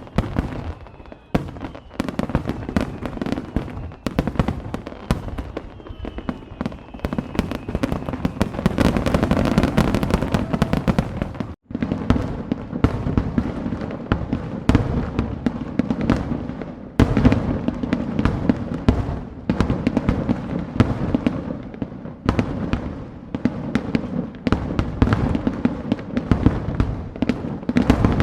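Fireworks display: a dense, continuous barrage of bangs and crackling shells, with faint whistles about the start and again some six seconds in. The sound drops out for an instant a little before halfway through.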